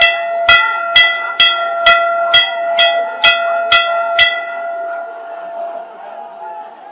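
A bell struck over and over, about two strokes a second, nine strokes in all, then left to ring out and fade; the murmur of a large crowd lies faintly beneath.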